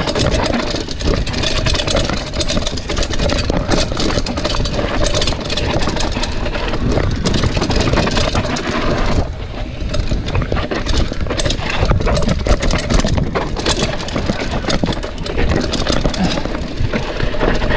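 Mountain bike descending a dirt singletrack: a steady rush of tyre and wind noise, with frequent knocks and rattles from the bike as it goes over bumps.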